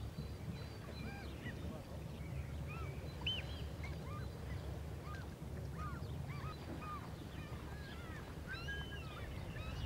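Many waterbirds calling over and over, short rising-and-falling calls scattered throughout, over a steady low rumble.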